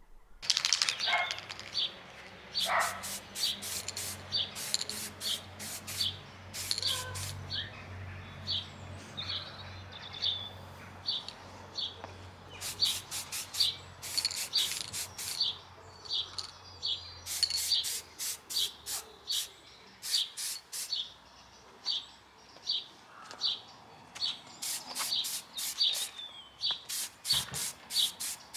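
Aerosol spray-paint can being worked in groups of quick, sharp high bursts, each group about a second long, recurring every few seconds. A bird chirps the same short note over and over throughout.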